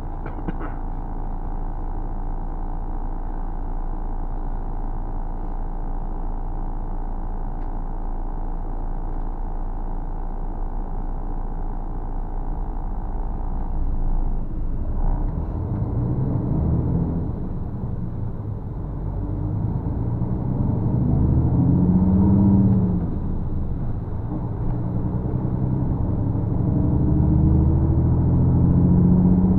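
Engine of a large road vehicle heard from inside its cab, idling in stopped traffic under a steady hum. About halfway through the hum stops and the engine pulls away, its pitch rising and falling in several sweeps as it works up through the gears.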